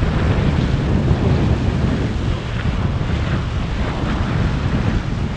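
Strong wind buffeting the microphone as a low, steady rumble, over the rush of sea water along the hull of a sailing yacht under way.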